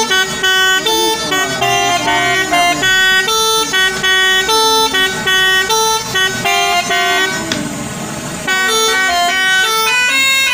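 Truck 'telolet' musical air horn playing a quick melody of stepped notes, each lasting about a quarter of a second, with a short break about seven and a half seconds in.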